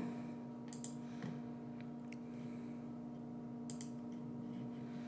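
A few faint computer mouse clicks, a pair of them near the end, over a steady low background hum.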